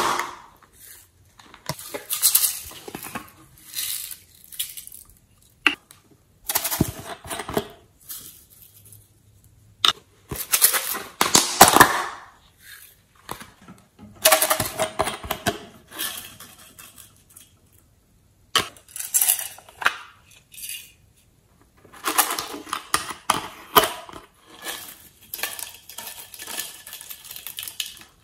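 Small plastic containers being opened and shaken, sequins and glitter rattling inside and pattering out onto a tray of slime, in bursts of a second or two with short pauses and a few sharp clicks between.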